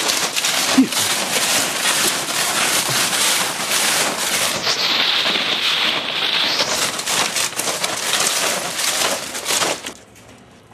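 Aerosol spray-paint can hissing steadily with uneven flutter as paint goes onto a freight car's metal side panel, stopping shortly before the end.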